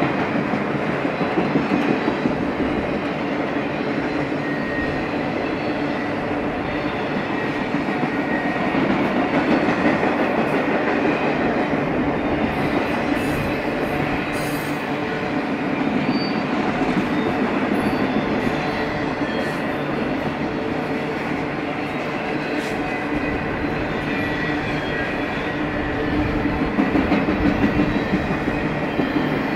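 Enclosed autorack freight cars rolling past at steady speed: a continuous rumble and rattle of steel wheels on rail, swelling and easing a little as cars go by, with faint high wheel squeal now and then.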